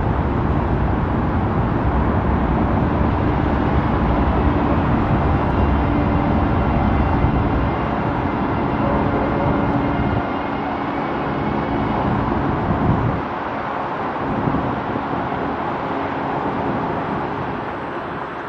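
Road traffic passing: a steady rush of cars, heaviest in the first half, with the low rumble dropping back after about ten seconds and again a few seconds later.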